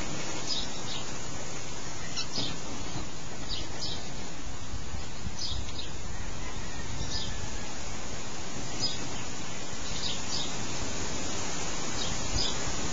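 Birds giving short, high chirps every second or two, often in quick pairs, over a steady background hiss.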